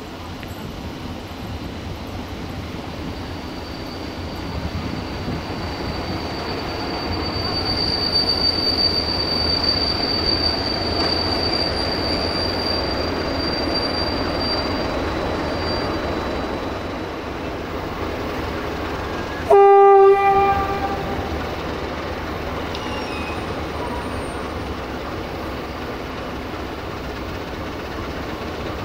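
Romanian diesel locomotive bringing a passenger train into the station and slowing to a stop. Its engine rumble and wheel noise build over the first several seconds, and a thin, high, steady squeal is heard while it brakes. About two-thirds of the way through comes one short, loud horn blast on a single note, lasting about a second.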